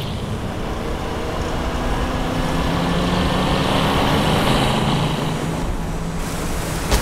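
Motorboat engines running hard at speed, with water rushing and spray from the hulls; the sound gets a little louder over the first few seconds.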